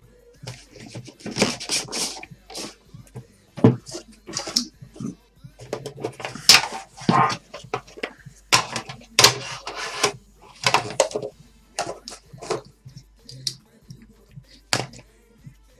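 Hands opening and handling a cardboard trading-card box and its wrapping: irregular crinkling, rustling and scraping noises in uneven bursts.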